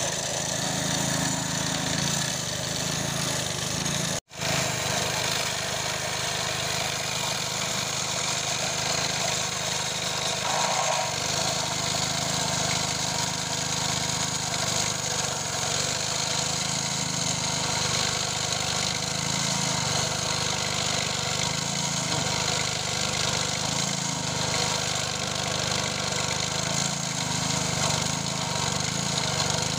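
Rail-cutting machine with a small petrol engine running at speed while its abrasive cut-off disc grinds through a steel rail, a steady engine note under a harsh grinding hiss. The sound cuts out for an instant about four seconds in.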